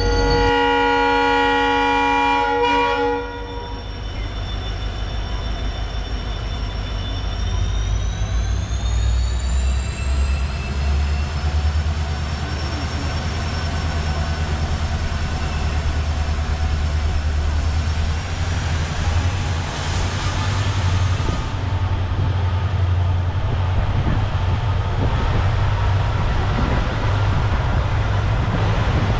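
A train's locomotive horn sounds one long blast for about the first three seconds. After it, the passenger train runs with a steady low rumble, and a high whine rises in pitch as the locomotive notches up to accelerate, then holds steady.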